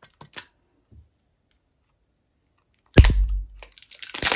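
Hands handling a plastic eyeshadow palette case: a few light clicks, a loud sudden thump about three seconds in, then crinkling of plastic packaging near the end as she works at the case's edge.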